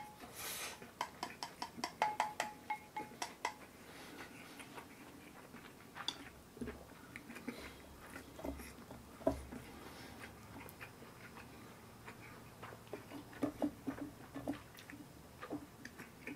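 Wooden chopsticks clicking against a ceramic rice bowl as rice is shovelled up, the bowl ringing briefly with each tap. After about three and a half seconds this gives way to scattered, quieter clicks and taps of chopsticks picking at the fish on the plates, with a quick run of them near the end.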